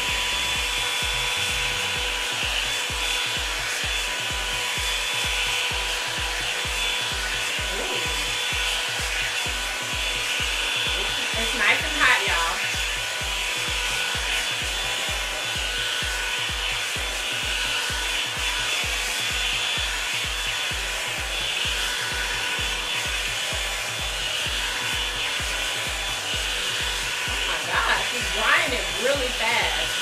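Revlon One Step hair dryer brush running on its high setting: a steady blowing rush with a constant motor whine as it is drawn through the hair. Two short louder sounds rise over it, about a third of the way in and again near the end.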